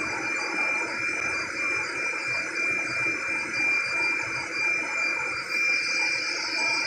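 Steady machinery noise in a plant: a continuous rushing hiss with a constant high-pitched whine running through it.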